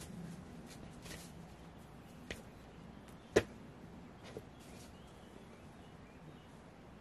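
Someone handling things in a small shed: soft rustling, and three sharp knocks about a second apart, the middle one much louder than the others.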